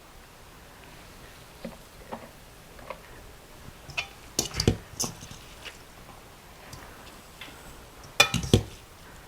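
Scattered clinks and knocks of kitchen dishes and utensils being handled, a few light ones early on and louder clusters about four and a half seconds in and again near the end.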